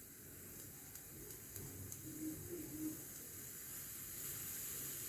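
Hawkins pressure cooker hissing steam, a steady hiss that slowly grows louder.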